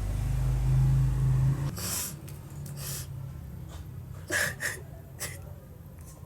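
A woman's short gasping breaths and sniffs, five or so spread over a few seconds, after a low rumble that stops about a second and a half in.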